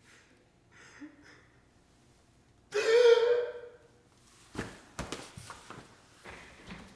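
A person's loud, drawn-out cry or gasp about three seconds in, falling slightly in pitch, followed by a few sharp knocks and breathy sounds.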